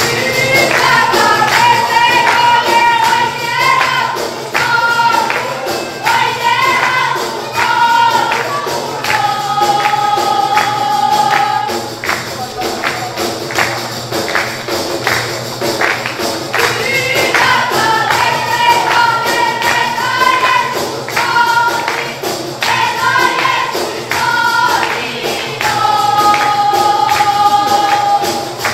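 Group of women singing a traditional Albanian wedding song to the steady beat of def frame drums, the sung phrases repeating over the drumming.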